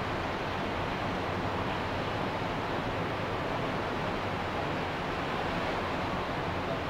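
Ocean waves washing on a beach: a steady, even rush of surf.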